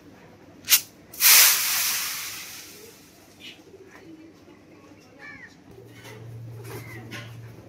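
Grain thrown onto a corrugated tin roof: a sharp click, then a loud rattling scatter that fades over about a second and a half. Later come fainter sounds of pigeons flying in and landing, with cooing.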